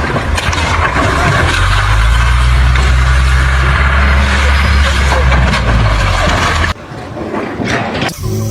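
A heavy engine running with a loud low rumble and a wash of mechanical noise. It cuts off suddenly near the end, leaving a quieter stretch.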